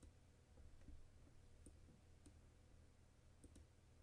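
Near silence: faint room tone with a few soft computer mouse clicks.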